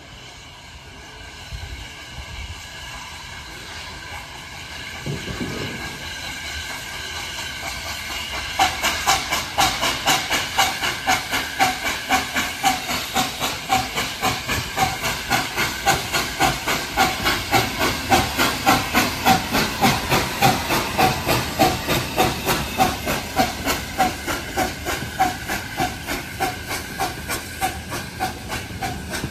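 Austerity 0-6-0 saddle-tank steam locomotive approaching and running slowly past, its steam hiss growing louder. From about nine seconds in comes a steady beat of about two a second.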